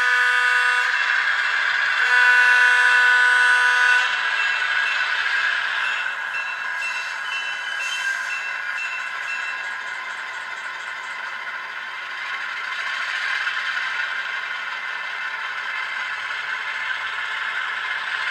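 Sound decoder of an HO-scale EMD E8 model diesel locomotive playing through the model's small speaker: a horn blast ending just under a second in and a second blast from about two to four seconds in, then a bell ringing for a few seconds, over a steady diesel engine sound as the locomotive runs.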